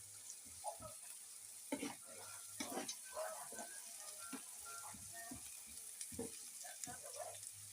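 Spring onion and seasoning frying in oil in a pan, with a steady faint sizzle, while a spatula stirs and scrapes against the pan in short irregular strokes.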